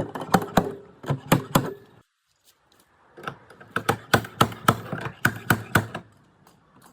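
Quick series of sharp taps and clicks, about four or five a second, in two runs, with a sudden break about two seconds in.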